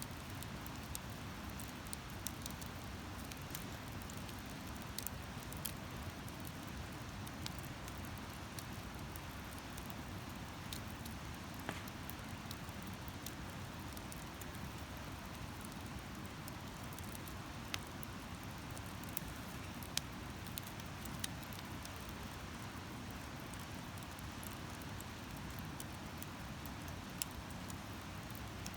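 Wood campfire burning with a steady low hiss and scattered sharp crackles and pops, the loudest about twenty seconds in.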